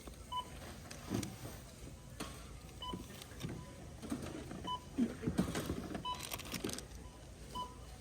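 Checkout barcode scanner beeping as items are scanned: five short, identical beeps one to two and a half seconds apart, amid the clatter and rustle of groceries being handled.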